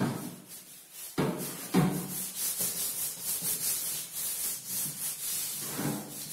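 A chalkboard being wiped clean: repeated rubbing strokes across the board.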